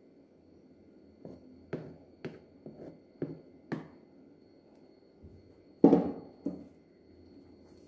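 Spatula knocking and scraping against the rim of a pot and a clear tray as thick pudding mix is scraped out and spread: a run of light knocks, then a louder knock near six seconds and a softer one just after.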